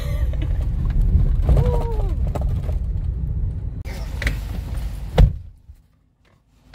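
Low road rumble inside an electric delivery van's cab while driving over a rough rural concrete road, with one sharp thump about five seconds in, after which the sound cuts off to near silence.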